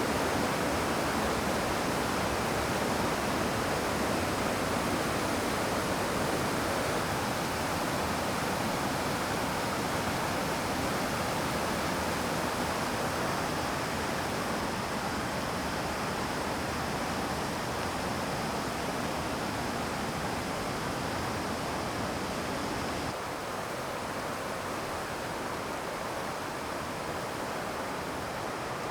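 Steady rush of falling and flowing water from a mountain stream's cascade, a dense even roar that drops a little in level about three-quarters of the way through.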